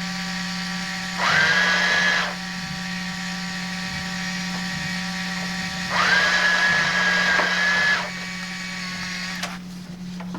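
Small electric motor of a toy checkout's conveyor belt whirring steadily. It gets louder and rises in pitch twice for a second or two, then stops near the end, followed by a few clicks.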